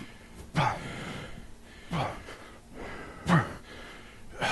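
A man grunting with hard exhalations, three short grunts falling in pitch, spaced about a second and a half apart, in time with the effort of pull-up reps.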